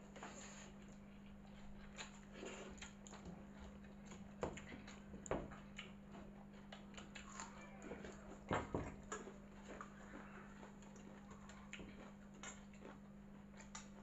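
Quiet eating sounds: hands squishing watered rice (pakhala) in steel bowls, soft clinks and taps of the steel bowls, and sips and gulps as the rice water is drunk from a bowl, with a few louder ones about eight and a half seconds in. A steady low hum runs underneath.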